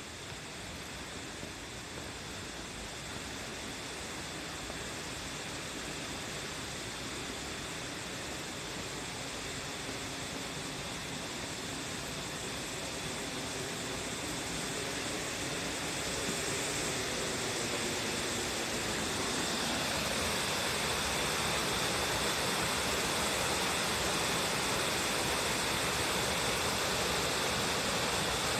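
Waterfall: a steady rush of falling water that grows gradually louder, turning brighter and more hissy in the second half.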